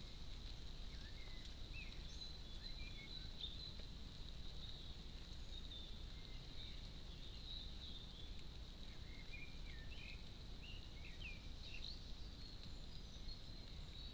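Faint garden ambience: a steady low hiss under a thin, steady high tone, with short chirps and twitters from small birds scattered throughout, busiest in the second half.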